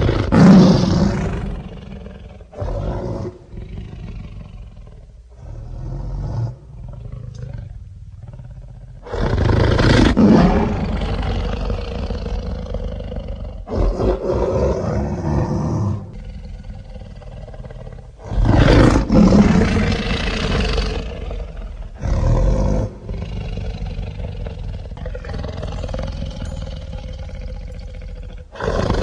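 Tyrannosaurus rex roar sound effects: a string of deep roars, the loudest at the start, about nine seconds in and about nineteen seconds in, with lower growls and rumbles between them.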